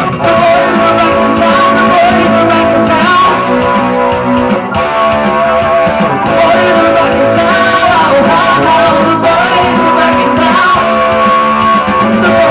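Rock song performed live: a man singing into a microphone over an electric guitar.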